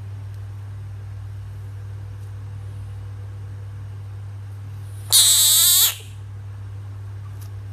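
A bullfrog gives one loud call of under a second, about five seconds in, its pitch wavering rapidly. A steady low hum runs underneath.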